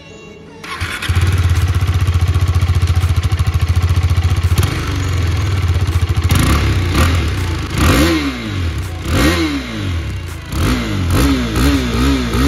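KTM RC 390's single-cylinder engine starting about a second in through its stock KTM silencer, then idling steadily. After that the throttle is blipped several times, each rev rising and falling, with quicker short blips near the end.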